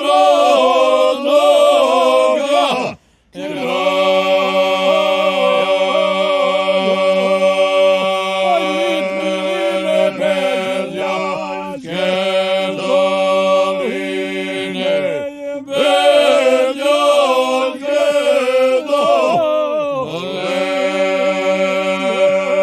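A group of men singing a folk song unaccompanied in close harmony, a low voice holding a steady drone under a wavering, ornamented lead line. Phrases break off for short breaths, the longest just under a second, about three seconds in.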